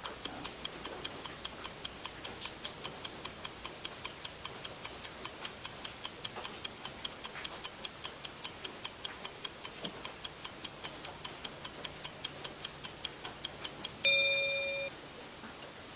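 A countdown timer ticking steadily, about four ticks a second, through a 15-second battery load test. About 14 seconds in, the ticking stops and the test's end is marked by a ringing beep that fades over about a second.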